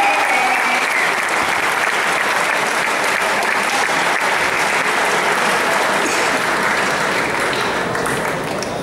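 Arena crowd applauding steadily, easing off slightly near the end.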